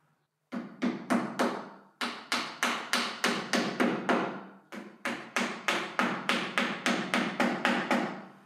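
Small wooden-handled hammer tapping on a piece of wooden cornice moulding, about four sharp strikes a second in three runs with brief pauses between them.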